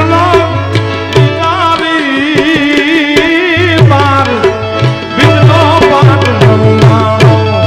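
Live Indian folk music: tabla playing a steady rhythm with deep, pitch-bending bass-drum strokes, under a harmonium carrying the melody.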